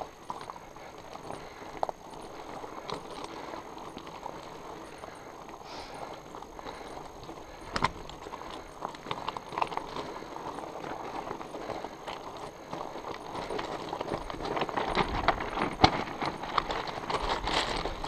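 Tandem fat bike rolling over loose rock and gravel: the tyres crunch over stones and the bike rattles, with scattered sharp knocks. It gets louder and rougher over the last few seconds.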